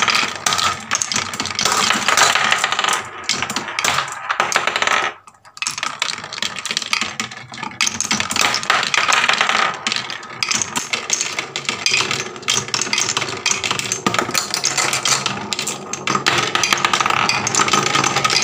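Marbles rolling and clattering down a HABA wooden marble-run slope, knocking against wooden pegs and blocks and dropping through onto the track below, a dense stream of clicks and knocks. There is a brief lull about five seconds in.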